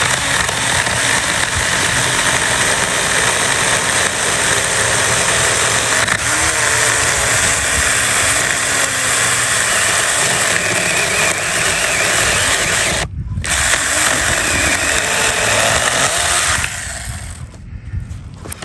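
Mini 4-inch cordless electric chainsaw running steadily as its chain cuts through a branch at the limit of the saw's capacity. It stops briefly about two-thirds of the way through, starts again, and stops shortly before the end.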